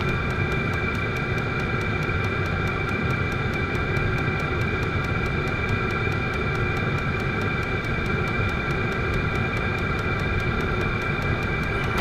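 Vevor diesel air heater running steadily: an even blower whir with a high, steady whine over it and a faint, fast, regular ticking.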